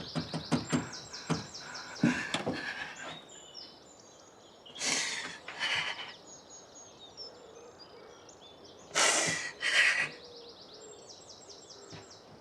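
Small birds chirping and singing throughout, with a quick run of clicks or knocks in the first few seconds. Two pairs of short, loud rushing bursts of noise come near the middle and again about three-quarters of the way through.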